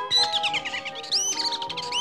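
A cartoon bird's rapid chirps and swooping, warbling whistles, played over orchestral background music with held notes.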